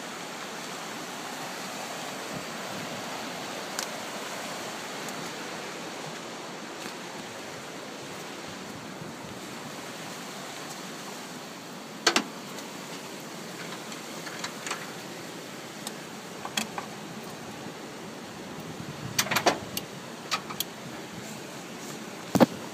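Steady wind hiss on the microphone with no engine running. A few sharp clicks and knocks of handling stand out: a pair about twelve seconds in, a cluster around twenty seconds and a loud one near the end.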